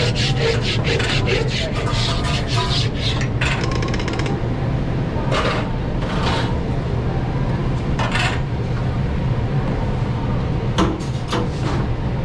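Metal grill scraper rubbing across a flat steel grill plate in quick back-and-forth strokes for the first few seconds, then a few single scrapes, over a steady low kitchen hum.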